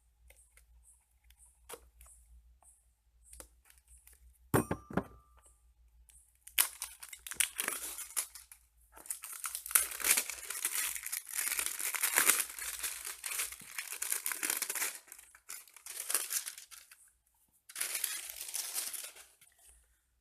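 Plastic shrink-wrap being torn and crumpled off a small cardboard product box. A few light clicks and a knock come first, then long stretches of crinkling from about six seconds in, in bursts until near the end.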